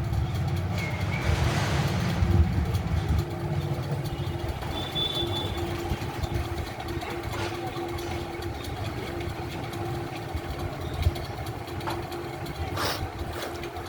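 An engine running steadily in the background, a constant hum with a low rumble, and a few light clicks and taps over it.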